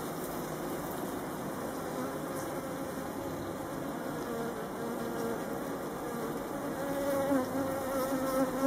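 Honeybees humming and buzzing over the open top bars of a Warré hive, with a bee's buzz coming louder and closer near the end.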